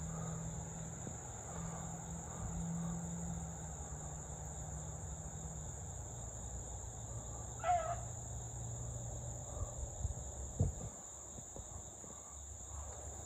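Steady high-pitched insect chorus over a low steady hum, with one short call falling in pitch about two-thirds of the way through.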